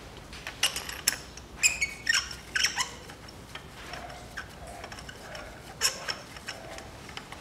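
Irregular metal clinks and clicks of hand tools, a spark plug socket and extension being handled at the engine. They come in a cluster over the first three seconds and again about six seconds in.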